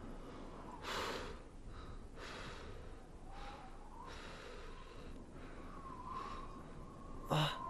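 A man's heavy, ragged breathing and gasps as he struggles up off the floor after a beating, ending in a short groan near the end.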